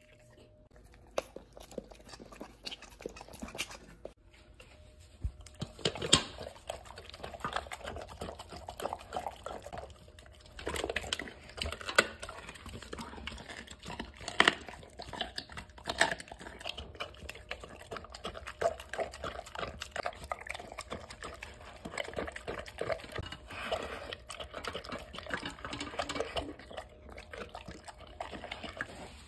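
A dog eating a raw meal from a stainless steel bowl: wet chewing and lapping, as many short, irregular clicks and smacks. It starts about six seconds in.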